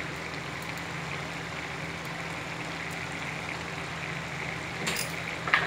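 Steady low hum with a hiss from a pan of spinach curry simmering on a gas stove. A short sharp clink comes about five seconds in.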